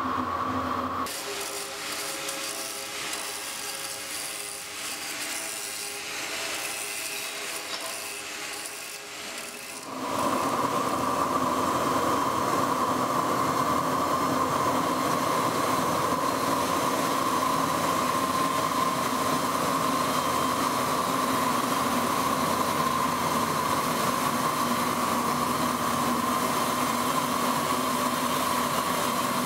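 Large circular stone saw cutting through a stone slab: a loud, steady grinding hiss with a strong whine, starting about ten seconds in. Before that, a quieter machine hum with several steady tones.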